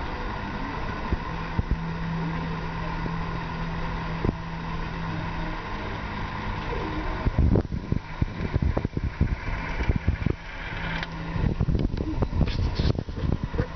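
Coin rolling around the curved funnel of a spiral wishing well: a steady low hum over background noise for the first half, then from about halfway a run of irregular clicks and knocks.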